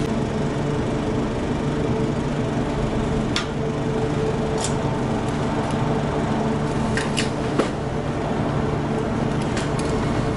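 A steady machine hum with an even low drone, broken by a few light clicks.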